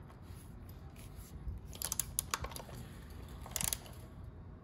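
Light metallic clicks and taps of a T-handle socket wrench turning a motorcycle frame slider's mounting bolt, bunched about two seconds in and again near the end.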